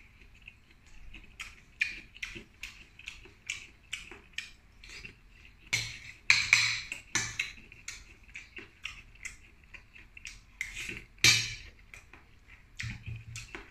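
Cooked shell-on seafood being picked apart by hand: irregular small clicks and cracks of shrimp, mussel and clam shells and clinks against the plate, with louder cracks about six seconds in and again a little past eleven seconds.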